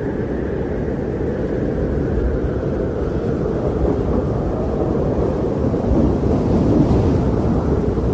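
Steady low wind rushing, swelling a little about six to seven seconds in.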